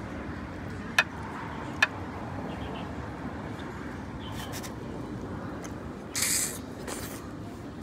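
Tableware at a food-stall table: two sharp clinks about a second in and just under two seconds in, then a short hiss about six seconds in, over steady background noise.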